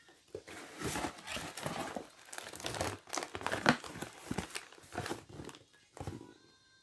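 Cardboard mailer box being opened by hand: its lid and tuck flaps scrape and crackle in a quick irregular run of rustles, loudest about three and a half seconds in, then it goes still near the end.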